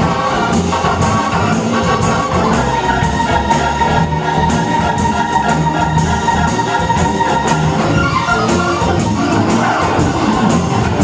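Live blues band playing an instrumental passage, with drums keeping a steady beat. One long held note runs from about three to seven and a half seconds in.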